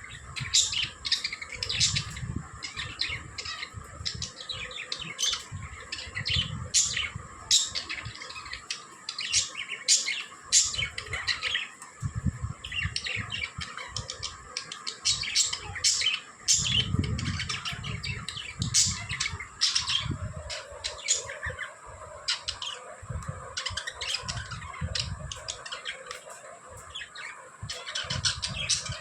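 Pet budgerigars chirping and chattering in a rapid, continuous stream of short overlapping calls, with intermittent low rumbling underneath.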